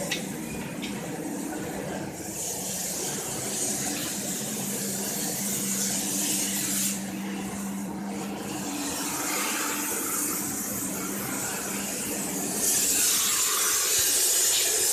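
Gas cutting torch hissing steadily, growing louder over the last two seconds, with a low steady hum underneath through the first half.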